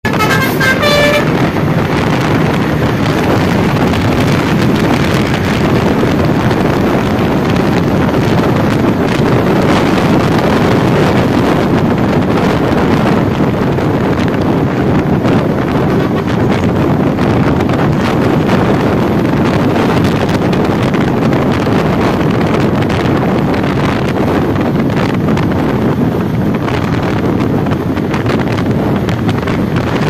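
A bus's telolet musical horn plays a quick run of notes in the first second, then steady, loud traffic noise from passing buses and motorbikes.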